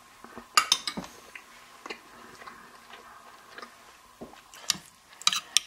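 A man chewing a mouthful of ham and bean stew close to the microphone: irregular wet mouth clicks and smacks, with a faint steady hum behind them.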